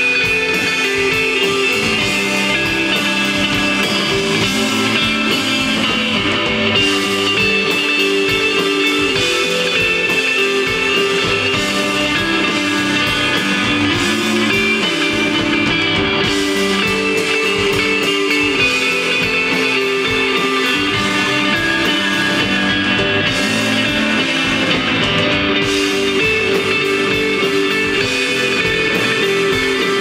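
Rock band playing live: electric guitar, electric bass and drums, with cymbal hits that drop out for brief moments.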